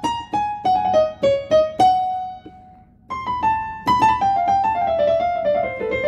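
Piano voice of a Yamaha PSR-A5000 arranger keyboard, its keys struck hard one note at a time, then after a short pause a quicker run of notes falling in pitch.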